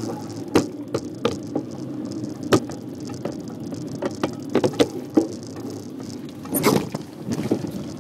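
Bicycle riding over street asphalt: a steady rumble of tyres on the road, broken by irregular sharp rattles and knocks as the bike jolts over bumps, with a longer rough clatter about seven seconds in.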